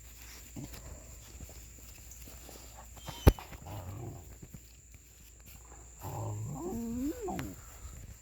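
Pointer puppies making play sounds: short low growls, then a whine that rises and falls in pitch about six to seven and a half seconds in. A single sharp knock comes about three seconds in.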